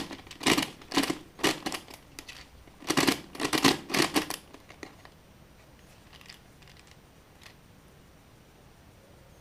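Unmagnetised plastic skewb and 2x2x2 hybrid twisty puzzle being turned by hand: a run of clacks and clicks as the pieces snap round. The turning stops about four and a half seconds in, leaving only a few faint ticks.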